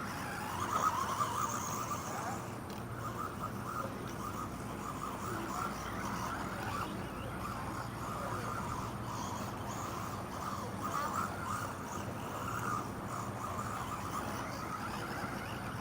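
Electric motor of a 1/18-scale RC monster truck whining as it is driven, the whine wavering up and down in pitch with the throttle.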